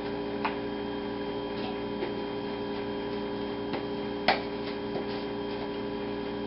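Steady electrical hum with a few light clicks and taps from handling a seasoning shaker and chicken pieces in a plastic container; the sharpest tap comes about four seconds in.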